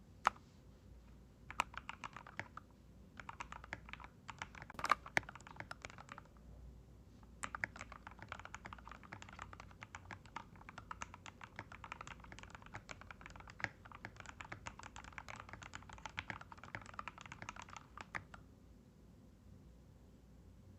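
Typing on an NJ68 mechanical keyboard fitted with lubed AKKO x TTC Demon linear box-stem switches: fast runs of keystroke clacks in several bursts with short pauses, stopping a few seconds before the end.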